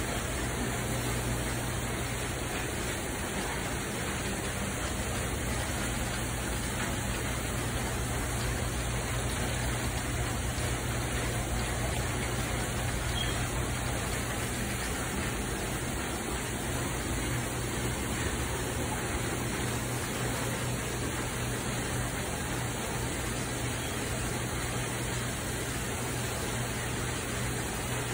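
Steady, even hiss with a low hum underneath, unchanging throughout, with no distinct sounds standing out.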